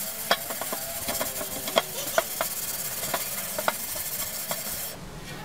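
Damp Jex scouring pad scrubbing a metal pot coated in cleaning paste: a steady scratchy hiss with scattered clicks as it works the soot off in circles, stopping about five seconds in.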